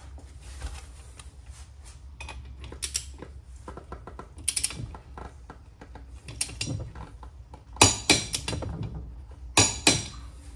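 A long-handled torque wrench tightening the spline nut on a Yamaha jet pump drive shaft: scattered metallic ratcheting and clicks over a low steady hum, with two sharp, loud clicks near the end.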